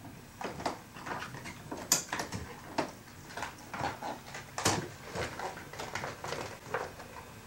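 Handling noise of bicycle parts being packed into a hard suitcase: fabric padding rustling and metal and plastic parts clicking and knocking against each other in an irregular run, with the sharpest knocks about two seconds in and a little past the middle.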